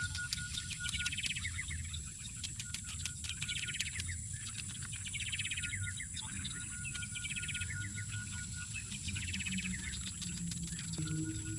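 Birds singing, one repeating a short trilling phrase about every second and a half, over a steady low hum.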